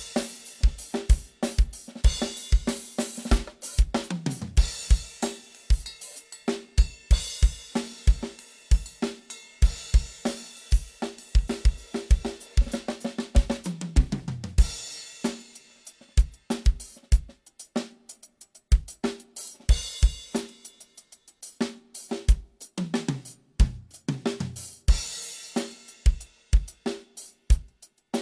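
Acoustic drum kit played solo in a sound check: a bass drum and snare beat with hi-hat and cymbal crashes, broken several times by tom fills that run down in pitch from high to low toms.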